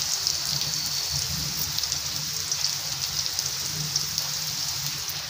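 Bitter gourd slices and onion sizzling in hot oil in a steel kadhai: a steady crackling hiss with a low hum underneath.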